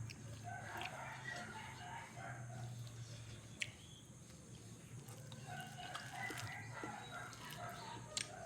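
Chickens calling in the background in runs of short repeated notes, with a sharp click about three and a half seconds in.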